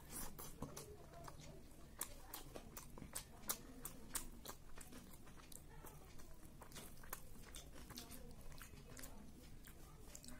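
Faint close-up chewing of a hand-fed mouthful of rice and chicken curry: many quick, soft, wet mouth clicks, thicker in the first half.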